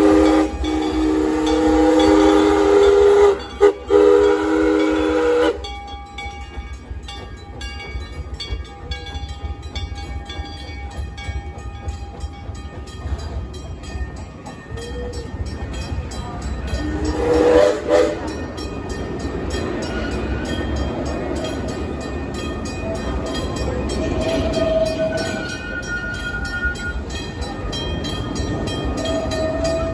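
Steam locomotive whistle blowing a long, loud chord, broken twice briefly and cutting off about five seconds in, with a short second blast about halfway through. Between the blasts the train runs past over a low rumble, with a fast, even ticking from the wig-wag crossing signal.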